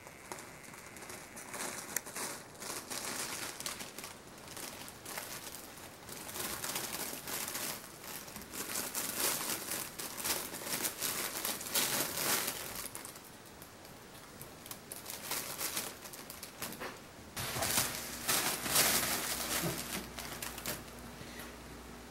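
Crinkly fabric of a pop-up cat tunnel rustling and crinkling as a kitten moves and plays inside and around it, in irregular bursts with a quieter lull about halfway through.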